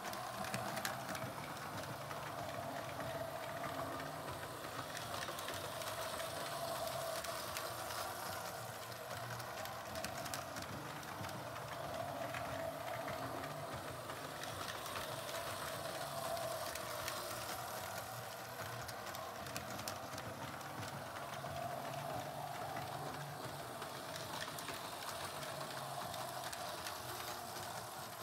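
Lionel Santa Fe F3 diesel model train running on three-rail O-gauge track: a steady electric motor hum with wheels rumbling and clicking on the rails, swelling and fading every few seconds.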